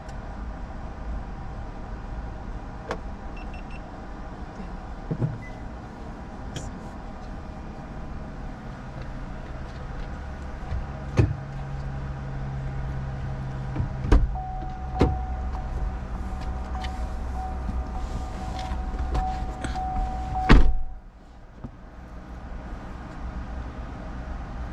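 Car sounds: a low steady hum with scattered clicks and knocks, and a steady tone lasting about six seconds. A loud thump comes near the end, after which everything is much quieter.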